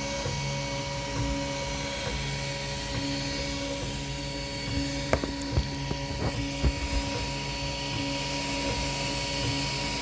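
Toybox 3D printer running a print: its stepper motors hum in steady tones that change note every second or two, with a few sharp clicks around the middle.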